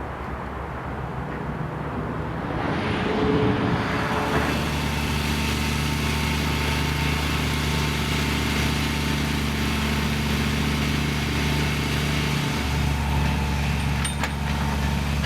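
A vehicle engine running steadily: a low, even hum that builds over the first few seconds and then holds.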